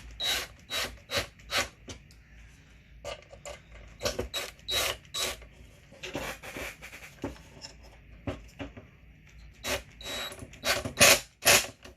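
Knife trimming excess gasket material off the fuel tank joint: a series of short scraping cuts in irregular clusters, with the loudest strokes near the end.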